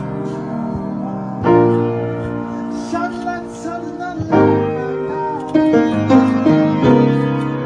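Piano playing slow, sustained chords, a new chord struck every one to three seconds and left to ring and fade.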